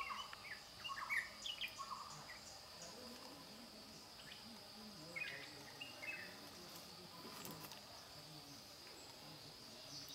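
Faint ambient birdsong: short chirps in the first couple of seconds and again about five seconds in, over a steady high-pitched insect-like trill.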